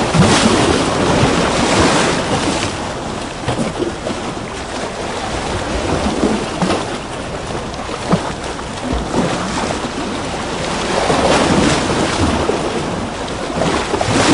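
Recorded ocean-wave sound effect: a continuous wash of surf that swells and eases every few seconds.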